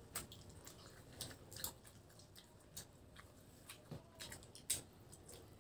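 Soft close-up chewing and lip-smacking as boiled pork leg and rice are eaten by hand, with scattered wet clicks and smacks at irregular moments.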